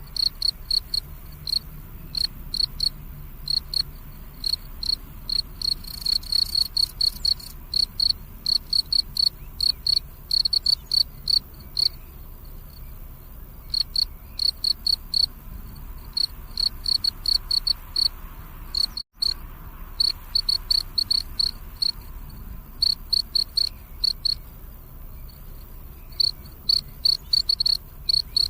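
Cricket chirping steadily in fast trains of high, clear pulses, with short pauses between trains. About nineteen seconds in, the sound cuts out completely for an instant.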